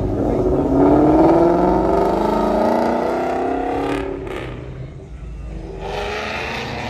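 A Ford Mustang accelerating hard away from a standstill, its engine note rising steadily for about four seconds. After an abrupt break, a second Mustang's engine is heard more quietly as it drives by, growing louder near the end.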